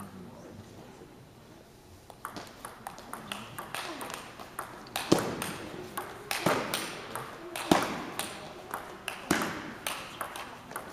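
Table tennis rally: the celluloid ball clicking off the paddles and the table, starting about two seconds in. It builds to four hard hits about a second and a half apart, with lighter bounces on the table between them.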